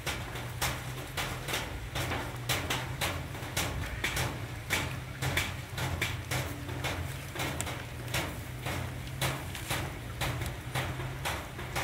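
Puppies lapping and licking food from a plate, a quick irregular run of wet clicks, about three or four a second, over a steady low hum.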